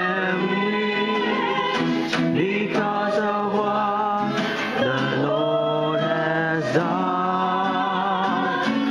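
A woman and a man singing a Christian worship song together, accompanied by an acoustic guitar.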